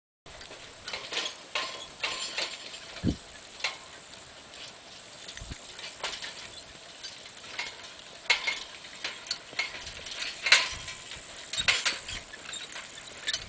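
Horse-drawn farm machinery and harness clanking and rattling in irregular metallic clicks, with a few low thumps, over a steady hiss.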